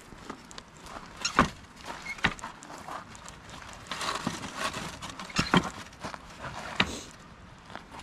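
Footsteps with irregular knocks and scuffs: about half a dozen sharp ones spread a second or more apart.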